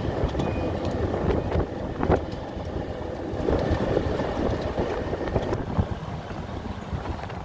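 Wind buffeting the microphone over the steady rumble and rattle of an open golf cart rolling across concrete.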